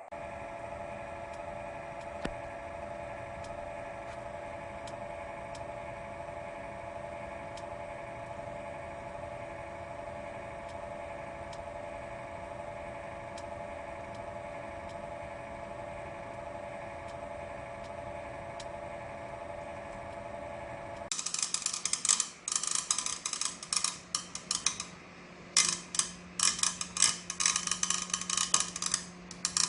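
Broken cooling fan in a PC power supply unit. It first gives a steady, slightly wavering whine with a few faint ticks. About two-thirds of the way through it turns suddenly into a loud, irregular, rapid rattling clatter, the sign of the failed fan.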